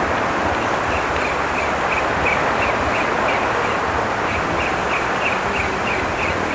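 Small spinning reel, a Kastking Valiant Eagle 1000, cranked steadily on a lure retrieve, giving a faint tick about three times a second. Under it runs a steady hiss of wind and sea water.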